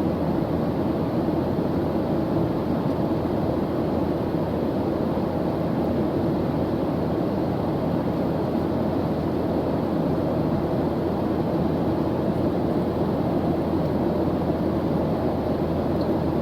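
Airplane engine noise heard as a steady low rush with no change, the even drone of a plane in cruise.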